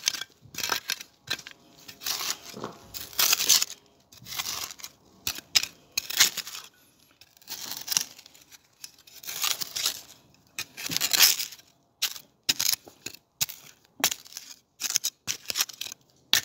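Metal hand trowel digging into loose, stony garden soil close to the microphone, with a scraping crunch at each stroke, repeated irregularly every second or so.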